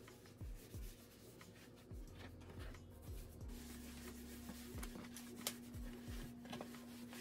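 Faint rubbing of a cloth wiping across a desk surface, in repeated soft strokes, over soft background music with steady low notes.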